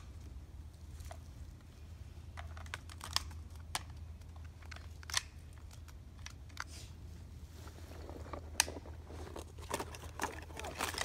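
Scattered light clicks and rustling of clothing and gear close by, getting busier near the end, over a low steady hum. No shot fires.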